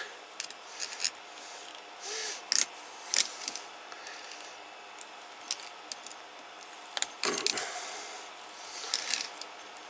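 Scattered light metallic clicks and scrapes from pliers gripping and turning a PL259 connector as it is screwed down onto RG213 coax, with a busier run of clicks about seven seconds in.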